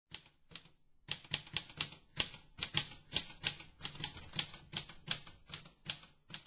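A series of sharp clacks: two at first, then after a short pause a steady run of about three a second.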